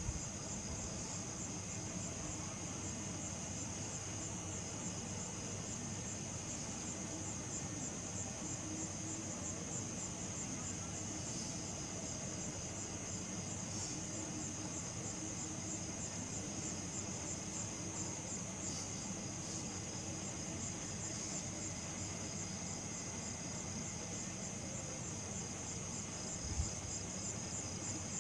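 Crickets trilling steadily and high-pitched, with one brief thump near the end.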